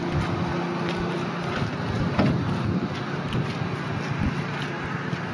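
Boat engine humming low under wind buffeting the microphone; the hum fades about a second in, leaving the wind and a few scattered knocks.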